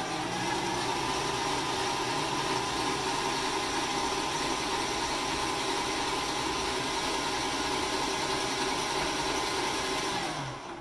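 Electric stand mixer running steadily with a motor whine as its beater works a stiff, dry flour-and-egg noodle dough in a steel bowl. The motor winds down and stops near the end.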